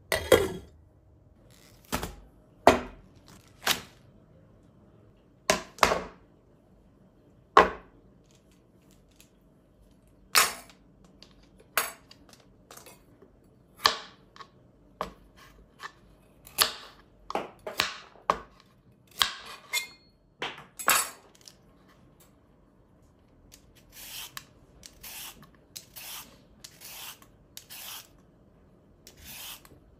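Sharp knocks of a knife and a carrot on a cutting board, a second or two apart. About three-quarters through they give way to even rasping strokes of a vegetable peeler stripping a carrot, a little under two strokes a second.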